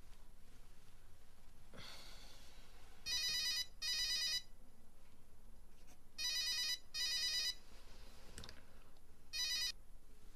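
Cordless phone handset ringing with an electronic double ring: two pairs of short rings, then one more ring that stops short as the call is answered.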